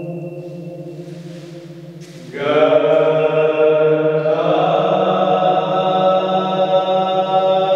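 Chanting of one long held note over a steady drone, swelling fuller about two seconds in.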